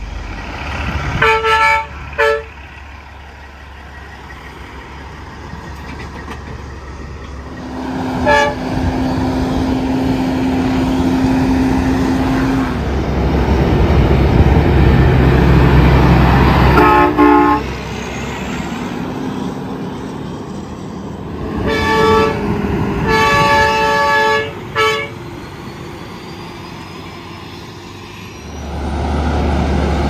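Semi-truck train horns, multi-note air horns, blowing short blasts as tractor-trailers pass: two quick blasts about a second in, a single short one about 8 seconds in, another near 17 seconds, and a run of blasts between about 22 and 25 seconds. Diesel engine and road noise swell between them as each truck goes by.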